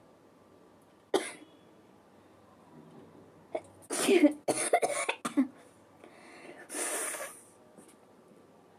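A person's induced sneezes and coughs: one sharp one about a second in, a quick run of four or five in the middle, and a longer breathy one near the end.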